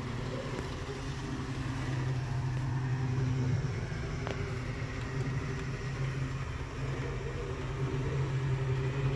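Model trains running on a museum layout: a steady electric motor hum with the rumble of wheels on the track, and a single sharp click about four seconds in.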